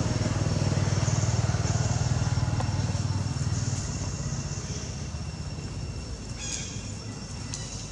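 Low engine hum of a passing vehicle, loud for the first few seconds and then fading away. Two short high chirps sound near the end.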